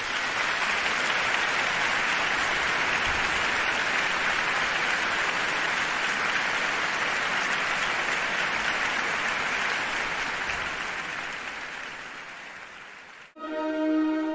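Steady, dense noise like the patter of applause, fading out over the last two seconds or so; music with sustained notes starts just before the end.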